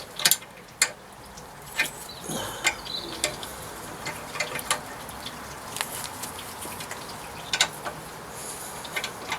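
Ratchet clicking in short, irregular strokes while undoing a BMW E60's rear brake caliper guide pins in a cramped spot, with occasional metallic taps.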